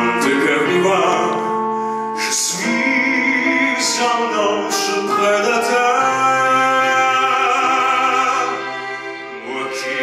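Male singer performing a French musical-theatre song live with orchestra accompaniment, holding long notes with vibrato through an amplified hall sound system.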